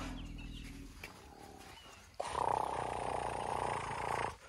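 African elephant calf calling: a low rumble at first, then about two seconds in a loud roar that lasts about two seconds and cuts off sharply.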